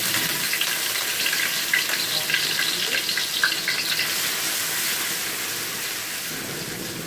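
Chopped garlic sizzling in hot oil in a stainless steel wok as it is stirred with a spatula. It crackles most in the first few seconds, then settles into a steadier hiss that slowly fades.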